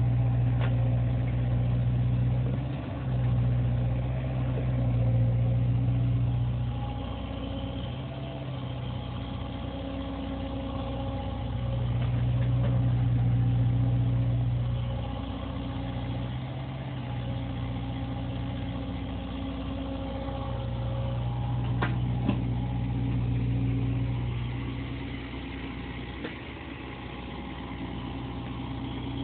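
CAT 305 mini excavator's diesel engine running under work, its steady note swelling and easing in loudness every few seconds as it moves earth.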